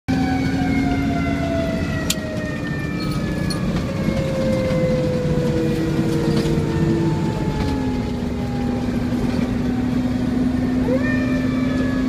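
Fire truck's siren heard from inside the cab: its pitch glides slowly down for most of the time, then winds quickly back up near the end. The truck's engine drones steadily underneath.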